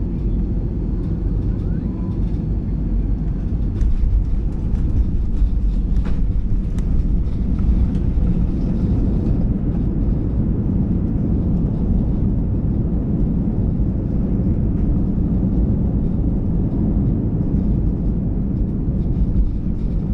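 Steady low rumble of an Airbus A320's engines and airflow heard inside the passenger cabin, growing slightly louder about four seconds in.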